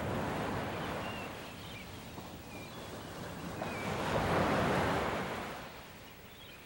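Ocean surf washing onto a beach, the waves swelling and ebbing, with the loudest wave breaking and rushing up about four seconds in.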